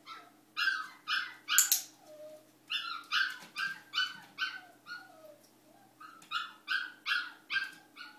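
Dog barking in a fast run of short, high yaps, about two a second, with a brief lull of quieter calls about two-thirds of the way through.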